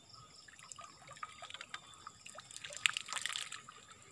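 Water trickling and dripping off a bamboo-frame lift net as it is hauled up out of muddy water. The drips and small splashes grow busiest about three seconds in.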